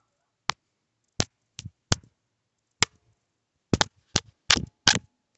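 A dozen or so short, sharp knocks and taps, sparse at first and coming quickly in the last second and a half: handling noise as plush toys are bashed about close to the phone.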